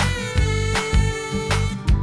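Background music: an upbeat track with melodic lines over a steady drum beat.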